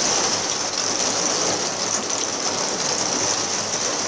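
Heavy rain falling straight down, a steady, even hiss.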